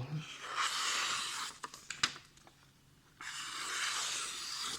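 Two long scraping strokes of a knife blade drawn along an oiled Arkansas soft stone in a sliding angle-guide fixture, the first about half a second in and the second near the end, with a few light clicks between them.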